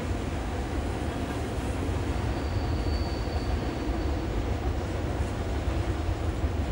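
Freight cars of a passing train rolling steadily along the rails, a continuous low rumble of wheels on track. A faint high wheel squeal rises and fades between about two and four seconds in.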